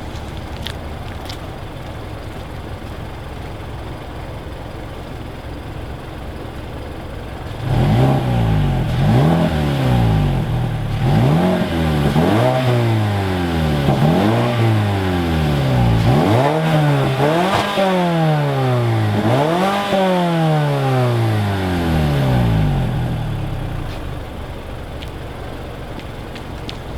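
2015 Mazda 6's 2.5-litre four-cylinder engine through its stock exhaust, with the cutout closed. It idles, is revved up and down several times in quick blips from about a third of the way in, then settles back to idle near the end. A slight exhaust leak from the not-quite-perfect cutout install is present.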